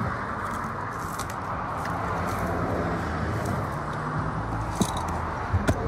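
Fire hose being rolled up on asphalt over a steady low hum and rushing background noise, with a few sharp knocks near the end.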